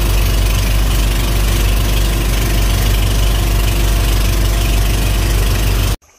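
Engine running steadily at a constant speed, loud and close, with a strong low hum and a dense hiss over it; it cuts off suddenly near the end.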